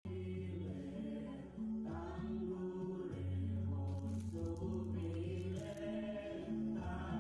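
Music from a phone played through a Taffware mini amplifier on its line input: slow, held chords over a steady low bass note, the chords changing about once a second. It cuts in suddenly at the start.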